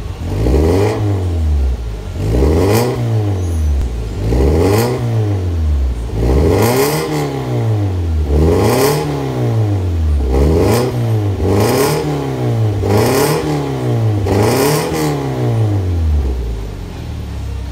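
Toyota FT86's flat-four engine blipped repeatedly through an aftermarket valved exhaust with the valve closed (Eco mode): about eight revs, each rising and falling, roughly every two seconds, then settling back to idle near the end.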